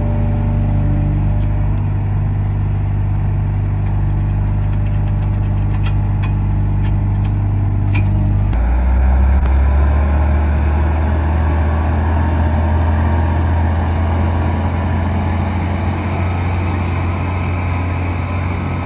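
Heavy diesel engine of a large excavator running steadily as it works its way onto a truck bed, with a series of sharp metallic clanks in the first half. About halfway through, the engine note drops lower and turns rougher.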